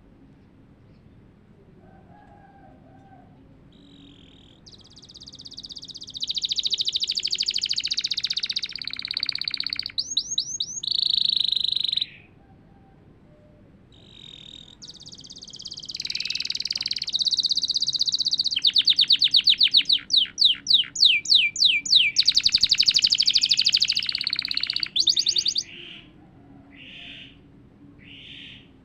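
Domestic canary in full song after its molt, singing long rolling phrases and fast trills of repeated rising notes. Two long bouts are separated by a short pause around the middle, with a few short notes near the end.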